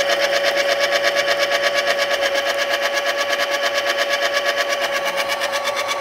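Baratza Encore conical burr coffee grinder running empty: a steady motor hum with a rapid, even pulsing of about eight beats a second. This is the abnormal running noise that the owner is filming for a warranty claim.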